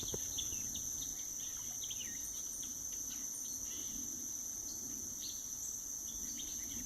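A steady, high-pitched insect chorus, unbroken throughout, with scattered short bird chirps over it.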